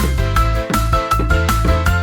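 Upbeat background music with a steady, quick beat, a bass line and bright melodic notes.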